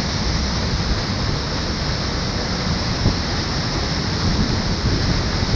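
Mountain-stream waterfall crashing into white water between boulders, a loud, steady rush close to the microphone.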